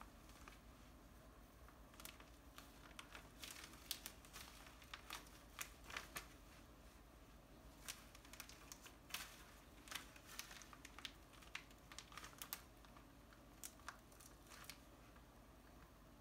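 Faint, irregular crinkling and tapping of a water-filled zip-top plastic sensory bag with confetti and beads as a toddler's hands pat and press it against a glass door. The crinkles start about two seconds in and die away near the end.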